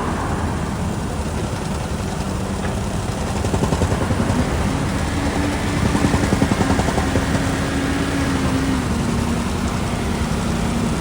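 Diesel engine of a Caterpillar backhoe loader running while it works. Its note rises about halfway through and drops back a few seconds later.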